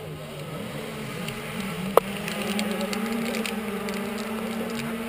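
Several motocross bikes idling together at the start line, a steady engine drone, with one sharp click about two seconds in.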